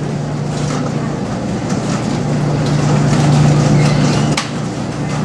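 Commercial laundromat tumble dryers running: a steady mechanical drone and hum, with one sharp click near the end.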